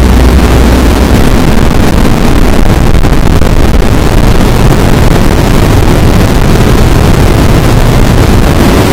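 Loud, steady, heavily distorted electronic noise, like blown-out static, with no tune or voice in it.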